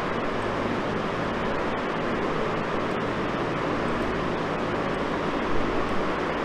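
Steady background noise with a faint low hum, unchanging throughout.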